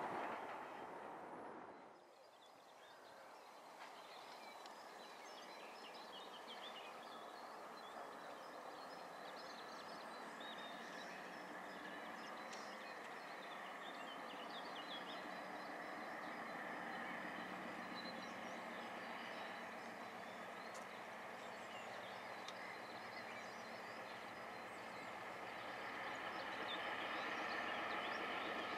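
Diesel locomotive engine running as the train slowly approaches, its steady note growing louder throughout. Birds chirp over it.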